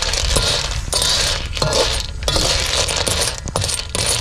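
Shells of boiled siput timba sea snails clattering and scraping against each other as they are stirred or scooped, in several bouts with short pauses between.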